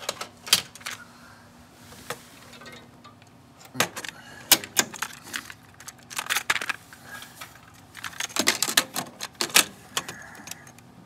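Plastic clicks and rattles of a compact cassette being handled in its clear case, taken out and loaded into the cassette door of a Marantz 5220 deck. The clicks come in several short clusters.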